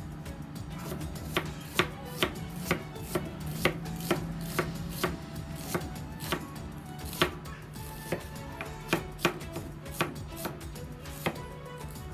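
Chinese cleaver slicing an onion on a wooden chopping board: sharp knocks of the blade hitting the board, about two a second, starting a little over a second in.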